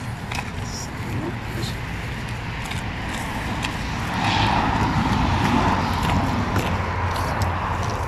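Steady outdoor background noise with a low rumble, growing louder about halfway through, with faint voices in it.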